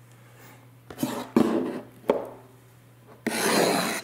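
A shrink-wrapped cardboard box of trading cards handled on a tabletop: a few sharp knocks and clicks, then a short rustling slide of about half a second near the end as the box is pulled forward.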